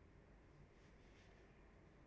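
Near silence: faint steady room hiss and low hum.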